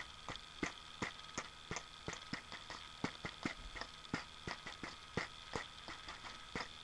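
Mouth clicks made with the lips and tongue in a beatbox rhythm, about three to four a second, over a faint steady hum.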